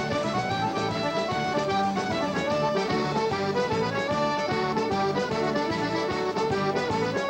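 Button accordion playing a fast traditional Newfoundland dance tune with the band, in a steady, even rhythm.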